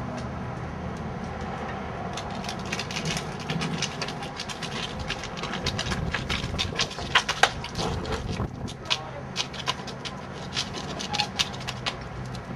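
Tire irons levering a tubeless motorcycle tire's bead over the rim: a run of sharp clicks and knocks, thickest in the second half and loudest about seven seconds in.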